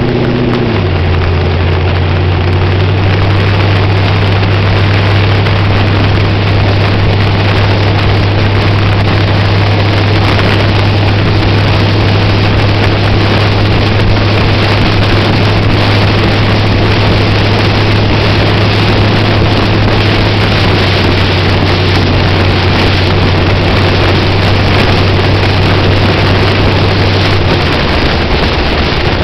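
Street-legal USAC sprint car's V8, with eight open intake stacks, running steadily at cruising speed under heavy wind buffeting on the microphone. The engine's pitch settles just after the start and dips slightly near the end.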